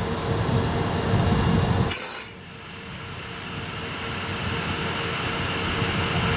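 Stationary EF64 electric locomotive running its onboard machinery with a low rumble, which cuts off about two seconds in with a short, sharp hiss of air. A steady hum with a high whine then slowly grows louder.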